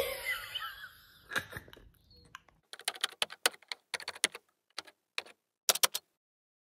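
Typing sound effect: a quick, uneven run of short key clicks, one per letter, as a caption types out, stopping about six seconds in. It follows a brief fading sound at the start.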